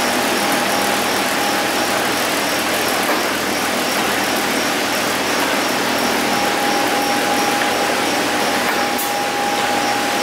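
Steady running noise of spring-making machinery, with a constant high-pitched whine and faint regular ticking, and a single short click near the end.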